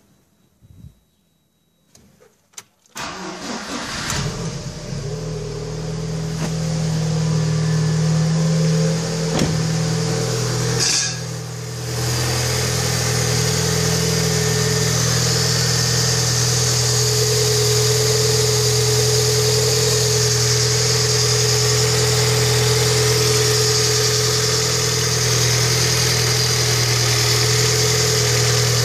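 Lada Kalina 1.5-litre engine started about three seconds in after a few faint clicks, running a little faster at first, then briefly dipping and settling to a steady idle. The engine is the one its owner is showing for a knock.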